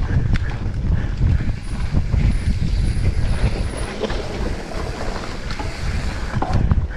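Wind buffeting the microphone of a mountain biker's action camera, over the steady rumble and rattle of the bike on a fast dirt trail descent, with a few sharp clicks and knocks.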